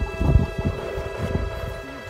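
Background music with steady held tones, over wind buffeting the microphone.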